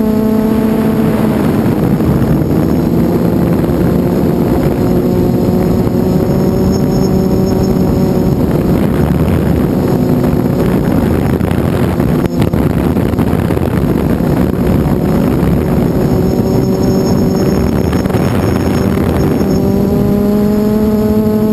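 TRIQ 450 quadcopter's brushless motors and propellers buzzing in flight, heard from the onboard camera. The pitch shifts up and down with the throttle, and through the middle the tone is largely covered by a rush of wind noise.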